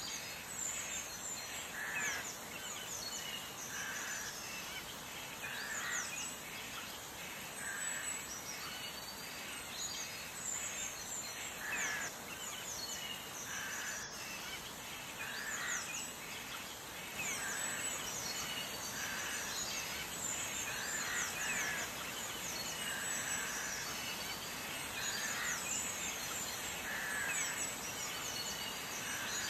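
Birds chirping over a steady background hiss, many quick high chirps, with one call repeated about every two seconds.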